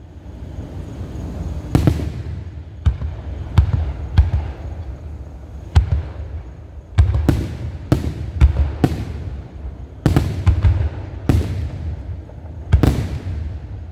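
Fireworks show: aerial shells bursting in a rapid, irregular series of about fifteen sharp bangs, each followed by a rolling echo, over a low continuous rumble.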